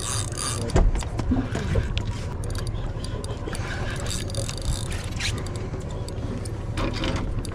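A fishing reel being cranked, its gears ticking and clicking, over a steady low rumble of the boat at sea.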